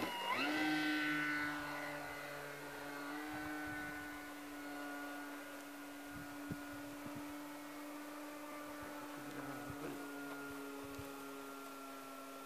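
Radio-controlled model Texan's motor and propeller: a steady whine that rises in pitch about half a second in as the throttle opens, then grows fainter as the plane climbs away.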